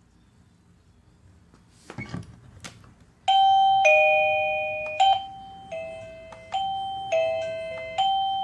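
A few clicks and knocks, then about three seconds in a Sinvitron wireless doorbell receiver starts playing its electronic chime tune, one note after another, each note ringing and fading before the next.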